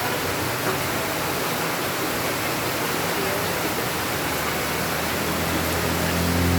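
Steady rain falling, a dense even hiss. Near the end a low motor hum builds under it.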